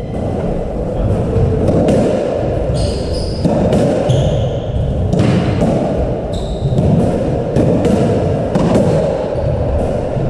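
Squash rally: the ball smacking off rackets, the front wall and the side walls in a quick run of sharp knocks, with brief shoe squeaks on the wooden court floor a few times.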